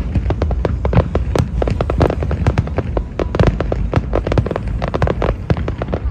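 Fireworks display: rapid, overlapping bangs and crackles of aerial shells bursting, several a second, over a continuous low rumble.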